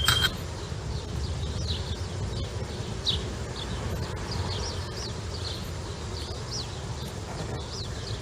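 A steady high-pitched tone cuts off with a sharp click at the very start. After that, small birds chirp in short, scattered calls over a steady low rumble of outdoor background noise.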